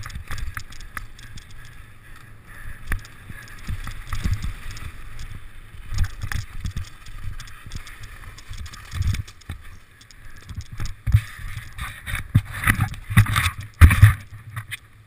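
A mountain bike descending fast over a dirt and gravel trail, heard from a camera mounted on the bike. Tyres rumble over loose stones, with wind rushing past and irregular knocks and rattles as the bike goes over bumps, loudest near the end.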